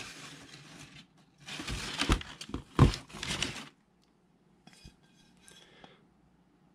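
A Cuthbertson Original Christmas Tree ceramic covered dish being handled and turned over, with rustling and a few light clinks and knocks of the ceramic, one sharper knock about three seconds in. The sound dies down to faint handling near the end.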